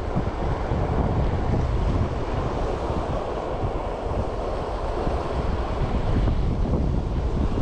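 Mountain stream rushing steadily, with wind buffeting the microphone in a low, uneven rumble.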